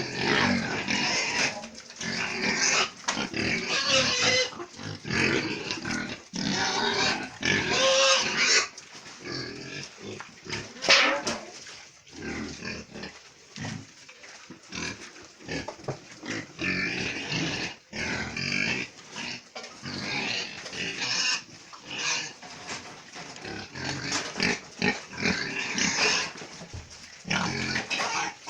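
Pigs grunting and squealing, several at once, loudest in the first nine seconds and again at one sudden peak about eleven seconds in, then quieter and more broken.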